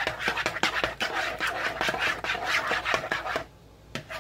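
A spoon stirring and scraping through a thick mixture of sour cream and canned cream soups in a bowl, in quick rhythmic strokes about four a second. The stirring stops about three and a half seconds in.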